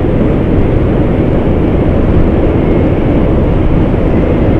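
Hero Xtreme 160R single-cylinder motorcycle cruising at a steady speed: a loud, steady rush of wind on the microphone mixed with the engine running.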